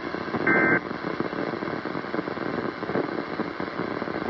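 A short warbling burst of SAME digital data tone about half a second in, the last of the three end-of-message bursts that close a weather radio alert, followed by steady radio static from the weather radio receiver.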